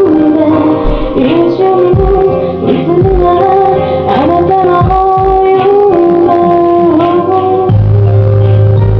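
A woman singing a slow ballad live over instrumental accompaniment, her held melody notes bending and sliding. About three-quarters of the way in, the accompaniment shifts to a sustained low bass note.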